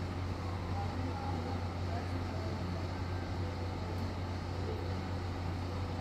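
Steady low mechanical hum with a constant rumble beneath it, unchanging in level.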